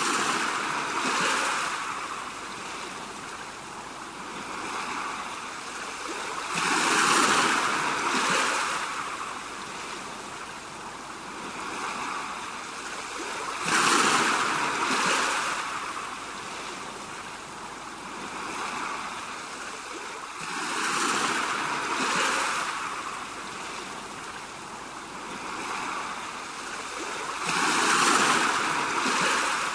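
Ocean surf: waves breaking and washing over rocks, a steady rush that swells into a louder crash about every seven seconds, five times in all.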